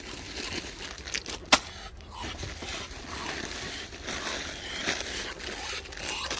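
Rustling and crackling of food being handled and put out, with one sharp knock about a second and a half in.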